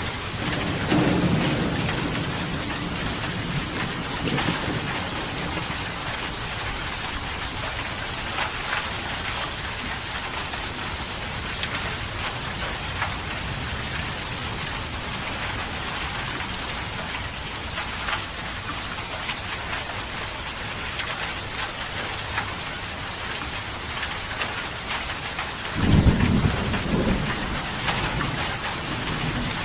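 Steady heavy rain falling on surfaces, with rolls of thunder: a low rumble fading in the first few seconds and a sudden louder clap of thunder near the end that rumbles away.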